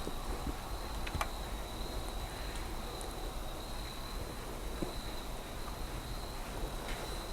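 Insects trilling steadily in one high, unbroken tone over a low rumble, with a single faint click about a second in.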